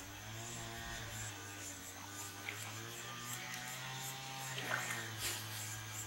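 A steady low hum, with a few faint clicks partway through and near the end.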